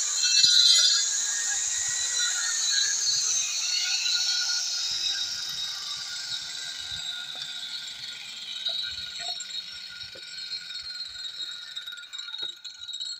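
Angle grinder cutting into a brick for about the first second, then switched off: the disc winds down with a whine that slowly falls in pitch and fades over about ten seconds. A few light knocks come from the brick being handled.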